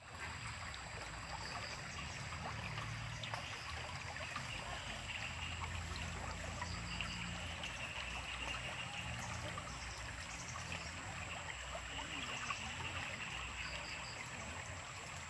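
Small river flowing: a steady rush and trickle of water, with faint short high chirps now and then.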